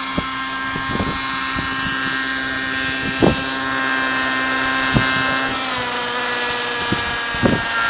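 Raptor SE 50 nitro RC helicopter's engine and rotor running in a steady whine as it touches down, with the pitch dropping a little after halfway as the engine is throttled back on the ground. A few brief thumps sound over it.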